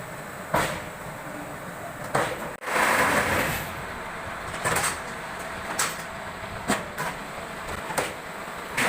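ABM4S-15 brick making machine running: a steady mechanical hum broken by sharp clanks every second or two, with a louder rush of noise lasting about a second, about three seconds in.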